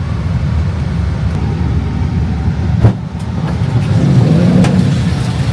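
Motor vehicle running, a steady low engine and road rumble that swells a little toward the end, with one sharp click a little under three seconds in.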